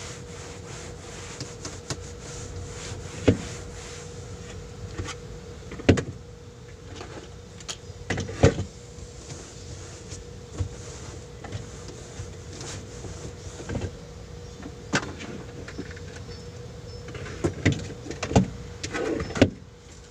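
A cloth wiping over a truck's dashboard, with irregular knocks and bumps as things on it are touched and moved, over a steady hum.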